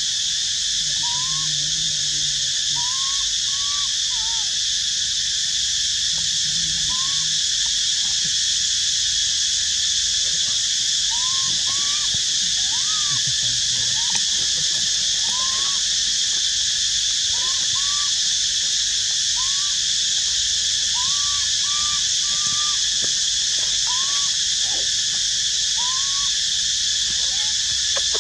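Steady, high-pitched drone of insects, with many short calls that rise and then fall, coming at irregular intervals over it.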